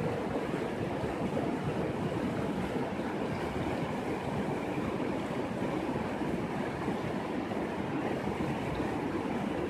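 Shallow mountain river rushing over a bed of rocks and stones: a steady, unbroken sound of flowing white water.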